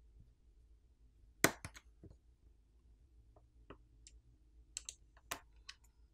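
Faint, sparse clicks and taps as a plastic pry pick pops flex-cable connectors off a smartphone's main board. The loudest click comes about a second and a half in, with a scatter of smaller ones later.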